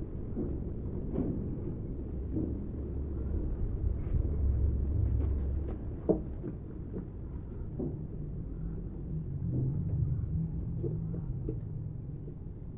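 Scattered light knocks and taps of wooden furniture parts being handled during assembly, over a steady low rumble; one sharper knock comes about six seconds in.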